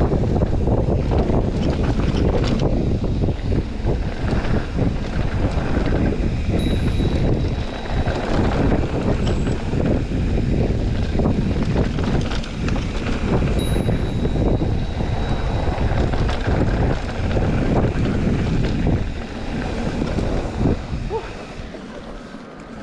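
Wind buffeting a chest-mounted action camera's microphone on a Specialized Turbo Levo electric mountain bike riding down a dirt trail, with steady tyre rumble and many rattles and knocks from the bike. Two brief high squeaks come about 7 and 14 seconds in, and it all quietens over the last few seconds.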